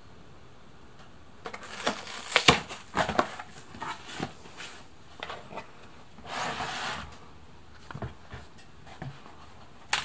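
Cardboard carton being opened by hand: flaps rustling and knocking, loudest about two and a half seconds in. Then a rustling scrape about six seconds in as a 5-quart plastic motor-oil jug is pulled out against the cardboard, with a few light knocks after and a sharp one at the end.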